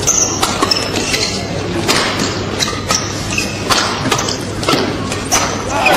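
Badminton rally: sharp racket-on-shuttlecock hits coming every half second to a second, with brief high shoe squeaks on the court over a steady crowd murmur in a large hall.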